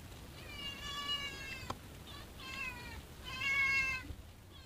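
A cat meowing: about four drawn-out meows, the last one the loudest.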